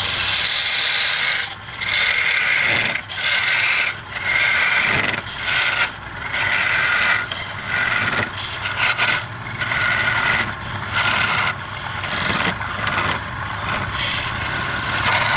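A hand-held turning tool scraping against a wooden ball spinning on a wood lathe. It makes a loud, steady shearing scrape in passes about a second long, with short breaks between them.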